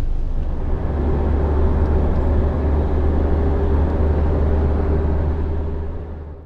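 A steady low rumble with a faint steady hum above it, fading out near the end.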